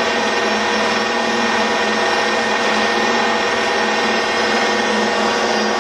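Bridgeport milling machine spindle running, its original three-phase 220 V motor fed by a variable frequency drive and turning the spindle through a one-to-one poly-V belt. A steady mechanical hum made of many held tones, not changing in speed.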